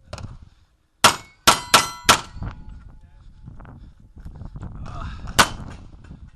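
Pistol shots on steel targets: four sharp shots in quick succession about a second in, each followed by ringing metal, then one more shot and ring a few seconds later.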